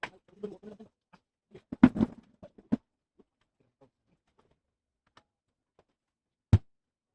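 Scattered clicks and knocks of small hard parts and tools being handled on a work surface during a laptop teardown, a cluster about two seconds in and one loudest knock near the end.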